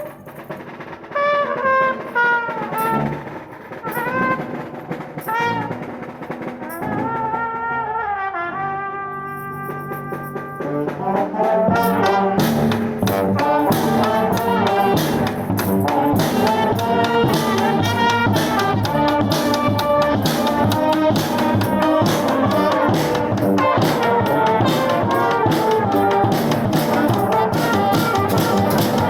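Street brass band playing: horns such as trumpet and trombone start with a loose, sparse melodic passage with bending notes. About eleven seconds in, the full band comes in with drums keeping a steady beat, louder and fuller.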